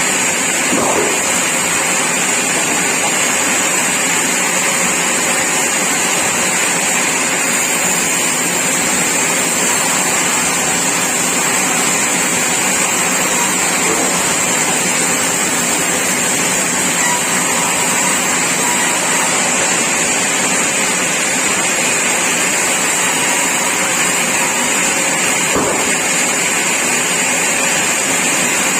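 Sawmill machinery running steadily: a loud, constant mechanical noise with a strong high hiss that does not change.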